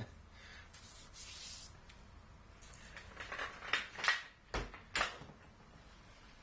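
A few sharp knocks and clicks of objects being handled on a workbench, four of them louder between about three and five seconds in, after a short hiss about a second in.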